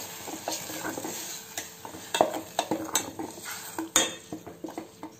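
Steel ladle stirring thick ground tomato in a stainless steel pot, clinking against the pot's side several times. Under it the tomato sizzles in hot oil, fading gradually.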